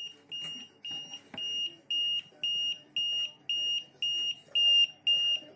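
The rain detector's piezo buzzer beeping an alarm, triggered because water has wetted the sensor. It gives a steady run of identical high-pitched beeps, about two a second.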